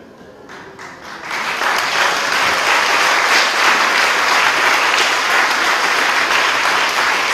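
Audience applauding: a few scattered claps, then a second or so in it swells into full, steady applause.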